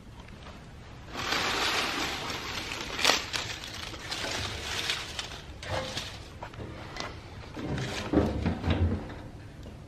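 Dry leaves and twigs rustling and crunching as handfuls are stuffed into the firebox of a homemade steel wood stove. Near the end, the steel firebox door is swung shut with a few metal knocks and thuds.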